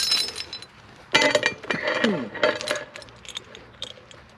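Short steel chain clinking and jangling as it is handled, with a louder metal clank about a second in and lighter clinks after.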